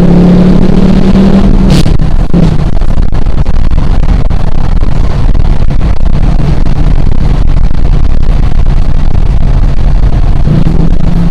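Dodge Charger R/T's V8 engine running while the car is driven, over loud, steady road noise. Its steady note drops away about two seconds in and comes back near the end.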